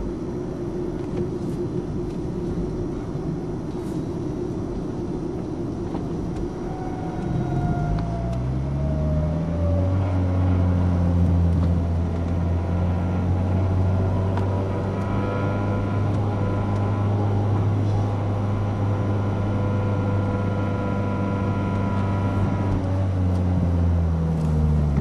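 Toyota Corolla in motion with a low droning hum that rises in pitch as it speeds up about a third of the way in, holds steady for a long stretch, then falls away near the end as it slows: the weird noise the owner is asking about.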